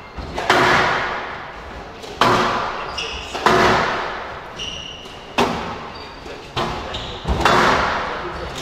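Squash rally: the ball smacks off rackets and the court walls about six times, each hit ringing on in the enclosed court, with brief squeaks of court shoes in between.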